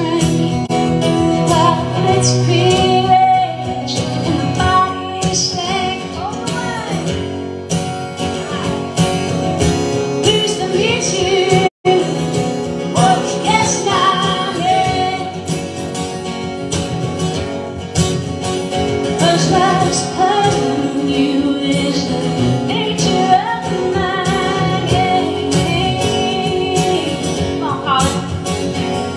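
Live song on two acoustic guitars, with a woman singing over the strumming. The sound cuts out completely for a split second near the middle.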